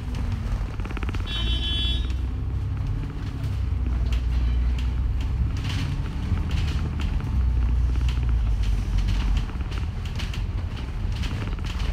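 A moving city bus heard from inside: a steady low engine drone with frequent rattles and clicks from the body and fittings. A short high beep sounds about a second and a half in.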